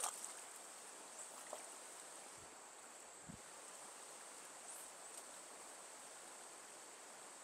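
Faint streamside ambience: a steady high-pitched insect drone over a soft, even hiss of running water, with a few small faint knocks.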